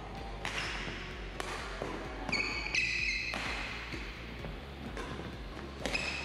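Badminton rally: rackets striking the shuttlecock every second or so, with sneakers squeaking on the wooden court floor a little over two seconds in and again near the end.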